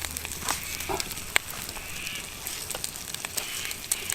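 Eggs frying in oil in a titanium camp pan over a campfire, sizzling with many sharp pops and crackles. Two short higher-pitched sounds of unclear source come around the middle.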